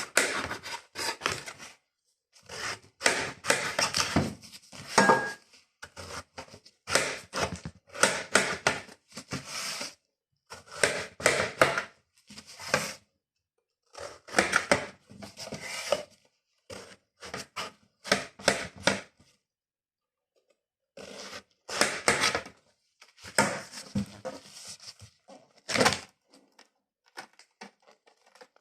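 Knife cutting through a large watermelon, in repeated bouts of sharp cracks and thunks on the cutting board as the thick rind splits and the blade hits the board, with short pauses between the cuts.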